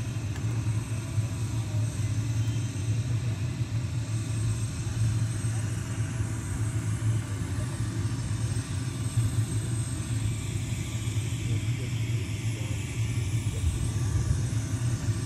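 Low, fluctuating rumble of wind buffeting the microphone, with faint talk underneath.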